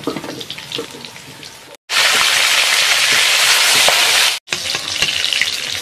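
Katla fish heads frying in hot oil in a kadai: a loud, steady sizzle that starts and stops abruptly in the middle. Before and after it come scattered clinks of a metal spatula against a steel plate over a fainter sizzle.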